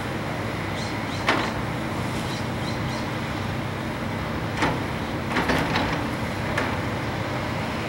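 Diesel engines of several hydraulic excavators running steadily, with sharp knocks about a second in and a cluster of them past halfway as the machines work.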